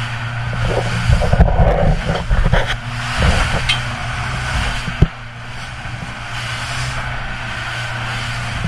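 Inside a small boat's pilothouse, the 115 hp Yamaha outboard drones steadily under way while the hull pounds through rough seas. Spray and water crash against the hull and windows from about a second in to about three and a half seconds in, and a single sharp thump comes about five seconds in.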